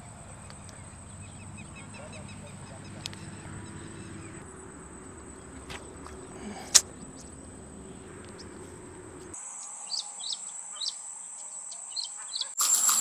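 Outdoor pond-side ambience: a steady high insect drone with birds chirping on and off. A single sharp click about seven seconds in, and the background changes abruptly a few times.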